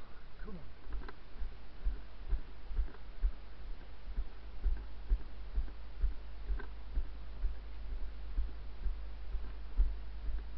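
Footsteps walking on grass, heard as dull low thumps about twice a second through a body-worn camera, over a steady low rumble, with a few faint ticks.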